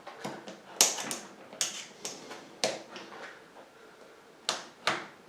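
Metal spoons, used as tyre levers, clicking and knocking against a bicycle wheel rim as a tyre is prised off the rim. About seven sharp clicks come at uneven intervals, with two close together near the end.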